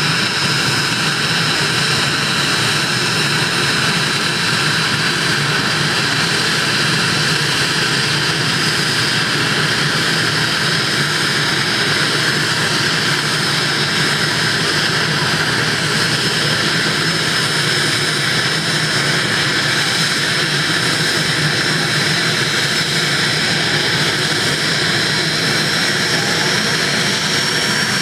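Twin Turbomeca Turmo turboshaft engines of an IAR 330 Puma helicopter running during start-up: a steady turbine whine with several high tones, one of them edging up in pitch near the end.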